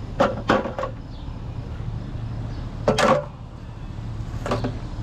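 Sharp knocks and clanks of scrap being handled: three quick ones right at the start, a louder one about three seconds in, and another a second and a half later, over a steady low hum.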